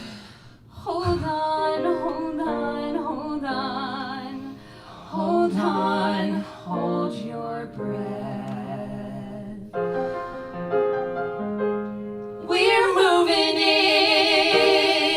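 Musical-theatre singing from the close of a song: a female voice and other singers holding wavering notes with vibrato, ending on one long held note.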